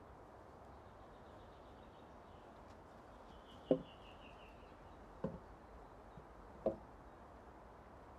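Three chops of a machete blade into wood, about a second and a half apart. A bird sings a short descending run of notes in the background around the first chop.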